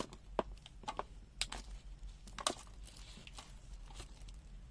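Handling noise from multimeter test leads: a string of irregular light clicks and rustles as the probes and cables are moved about.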